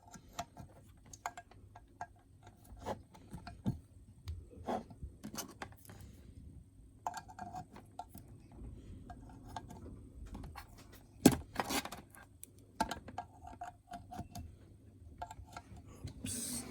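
Handling noise: scattered small clicks, knocks and rattles with some rubbing, as hard objects are moved and set down. One sharp knock about eleven seconds in is the loudest.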